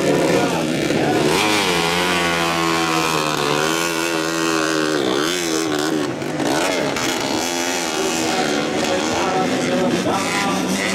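Several modified underbone motorcycles racing on a motocross track, their engines revving up and down repeatedly as the riders throttle and shift, the engine notes overlapping.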